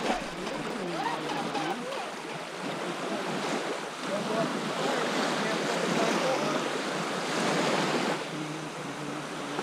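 Small waves washing onto the shore as a steady rushing noise, with wind on the microphone.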